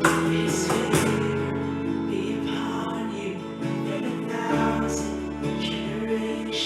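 Worship music between sung lines: guitar chords strummed at the start and about a second in, then held under sustained chords.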